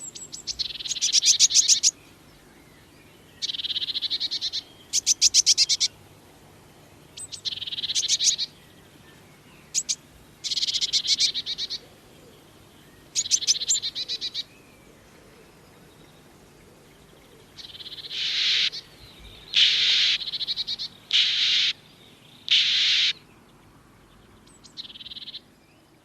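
Blue tit calls: about a dozen short, buzzy bursts of rapid clicking notes, each lasting about a second, with pauses between them.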